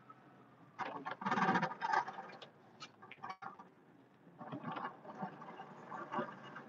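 Snow plow blade scraping and pushing snow, heard from inside the truck cab as irregular bursts of scraping and rattling, loudest a second or two in and again later.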